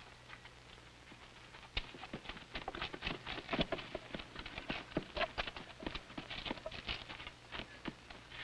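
Irregular clatter of many booted footsteps from a group of men moving and shuffling into line, starting about two seconds in, over a faint steady low hum.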